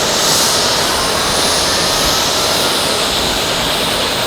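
Airbus A319's CFM56-5B turbofan jet engines running: a steady, loud rushing noise with a faint high whine that rises slowly in pitch.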